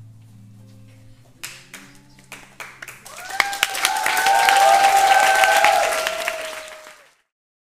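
The last notes of music die away, then scattered claps build into full audience applause with cheering voices. It cuts off suddenly near the end.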